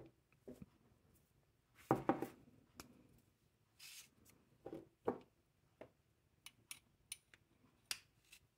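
Handling noise of small hard objects: a string of sharp clicks and taps, loudest about two seconds in, with a short rub near four seconds and quicker clicks in the second half.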